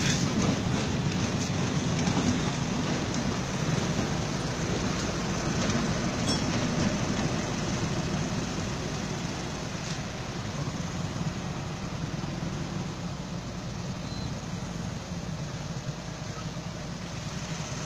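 Passenger train coaches rolling past close by: a steady rumble of wheels on the track that slowly fades as the last coach goes by and the train moves away.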